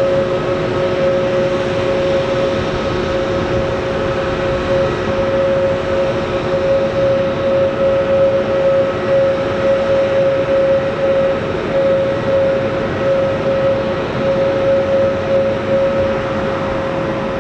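Airbus A321neo's Pratt & Whitney PW1100G geared turbofans at taxi idle: a steady whine over an even rushing noise.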